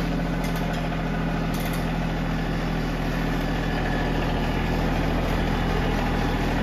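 Compact tractor's engine running steadily at low speed as the tractor reverses slowly.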